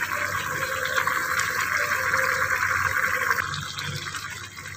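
Chili sauce bubbling and simmering steadily in a wok on a gas stove as it cooks down, easing off a little after about three seconds.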